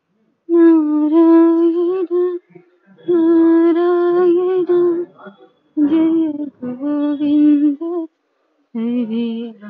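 A solo voice singing a Hindu devotional hymn in long, held, slightly wavering notes, with short breaths between the phrases.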